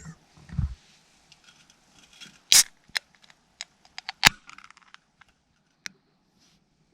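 Things being handled close by: scattered small clicks and crinkles, with a dull thump near the start and two loud sharp clicks, about two and a half and about four seconds in.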